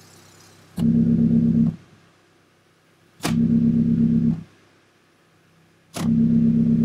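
Idling Mazda Miata four-cylinder engine heard through its new aftermarket exhaust. A rag-wrapped wood block is held over the tailpipe and pulled away three times as a back-pressure leak check. Each time the block comes off, the exhaust note cuts in loudly with a sharp puff, briefly twice and then longer near the end. While the tailpipe is blocked only a faint hiss remains. No leak is heard: the exhaust is sealed.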